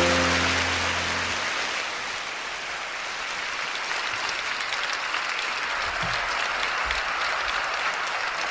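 Audience applauding as the song's final low chord dies away about a second and a half in.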